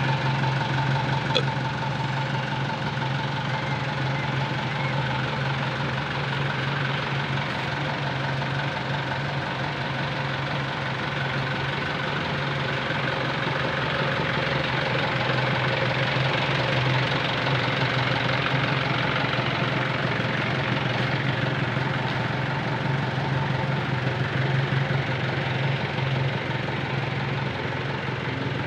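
Truck engine running steadily at an even pitch, with no revving, and a single short click about a second in.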